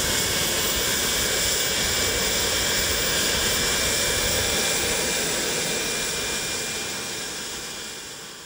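Business-jet turbine engine running with a steady roar and a thin whine that creeps slightly up in pitch, fading out over the last few seconds.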